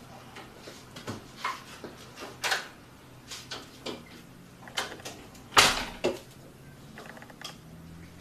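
Irregular knocks and clunks of someone moving about a kitchen, like cupboard doors and things being set down on a counter, the loudest a little past halfway.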